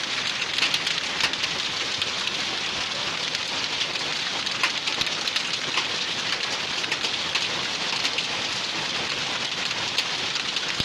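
Hail and rain pelting roofs: a steady, dense patter dotted with many sharp individual hits of hailstones.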